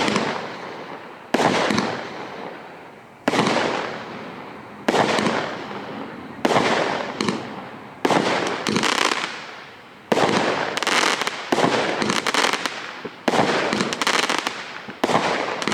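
Russian Bear "Formula 1" 20-shot firework cake (0.7-inch calibre) firing one shot about every one and a half to two seconds, about nine in all. Each is a sharp bang followed by a dense crackle that fades away.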